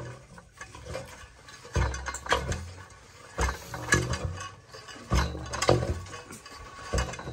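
Borewell drill pipe being worked by hand into the ground with a lever: repeated metallic clanks and scrapes with low thuds, coming in uneven pairs about every second and a half.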